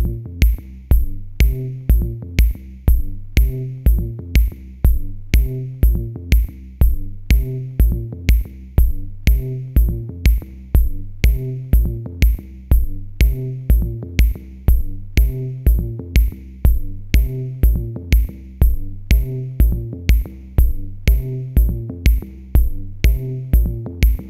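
Electronic background music with a steady drum-machine beat, about two kicks a second, over a repeating bass line.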